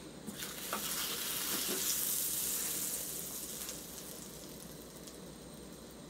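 Butter sizzling as it melts and foams in a small hot cast-iron skillet, with a few crackles. It starts suddenly, is loudest over the first three seconds, then dies down to a softer sizzle.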